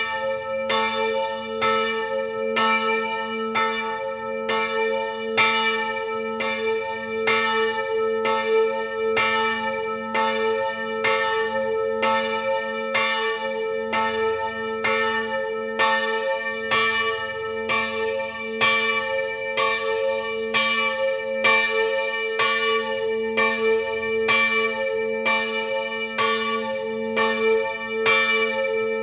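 Church bells ringing a steady swinging peal, struck about once a second, their tones hanging on and overlapping between strikes.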